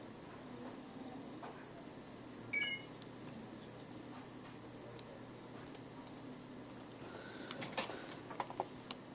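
Quiet indoor room tone with a steady low hum, a short high beep about two and a half seconds in, and a few light clicks near the end.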